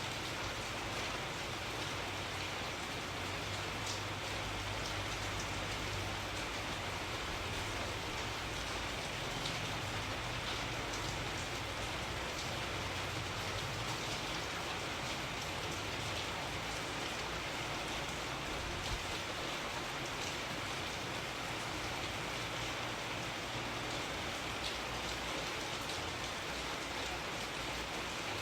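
Steady rain falling and pattering on a surface, with scattered drop ticks and a low rumble underneath.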